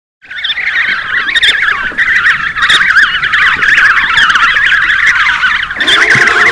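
A colony of Humboldt penguins calling all at once, many overlapping wavering, braying calls that start a moment in; a lower call joins near the end.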